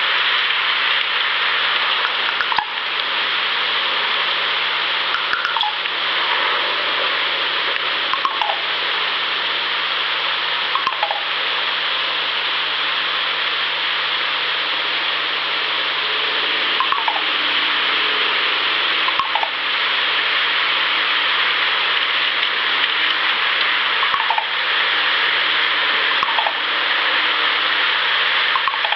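Loud steady hiss of a boosted outdoor recording, with a low steady hum underneath. Every two to three seconds a short chirp slides downward.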